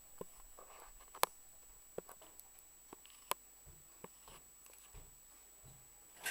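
Quiet indoor room sound with a few isolated sharp clicks and faint rustles at uneven intervals.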